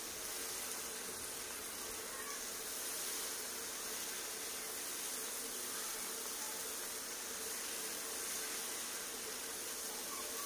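Steady sizzling hiss of chopped tomatoes, capsicum and peas sautéing in oil in a non-stick frying pan, with a faint steady hum underneath.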